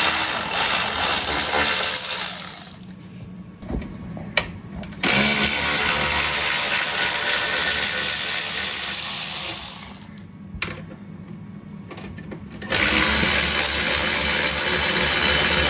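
Cordless power driver with a socket running in three long bursts, backing out the bolts of a bolt-in sports cage. A couple of sharp clicks fall between the first two bursts.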